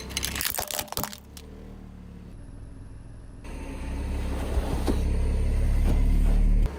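Objects crunching and cracking under a car's tyre for about the first second, then the car's engine rumbling low and growing steadily louder, cutting off abruptly near the end.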